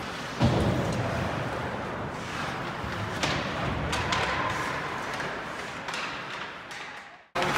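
Ice hockey game heard from the stands: a steady rink hiss with scattered sharp clacks and thuds of sticks, puck and boards, fading out near the end.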